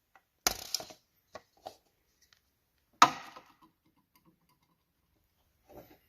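Handling knocks and clicks of tools and parts: a short cluster of clicks about half a second in, one loud sharp knock about three seconds in, and a faint one near the end.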